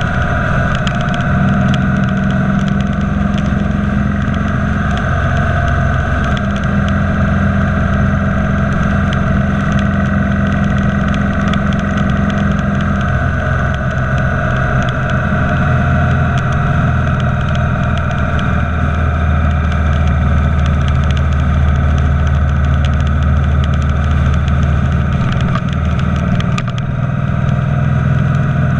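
Motorcycle engine running steadily at highway cruising speed, heard from the saddle behind the windscreen, over constant wind and road noise. The engine note shifts about halfway through and dips briefly near the end.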